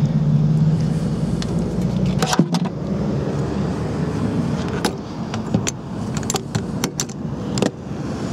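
A low, steady vehicle hum that stops about two and a half seconds in, then a string of sharp clicks and knocks from hard motorcycle luggage cases and their latches being handled.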